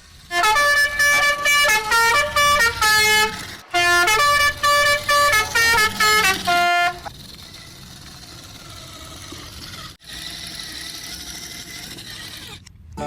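Musical vehicle horn playing a quick tune of short, changing notes in two phrases, then a quieter steady hiss for the last several seconds.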